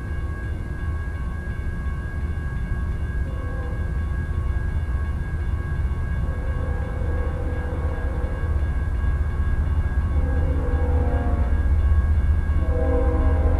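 Approaching freight train heard before it comes into view: a low rumble that slowly grows louder. The lead locomotive's five-chime K5HL air horn sounds in the distance, getting louder near the end.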